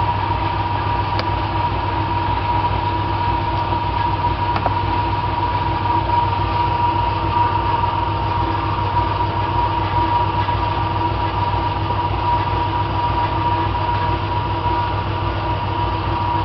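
Steady, loud machine drone from a running motor: a constant high whine over a fast, even low throb.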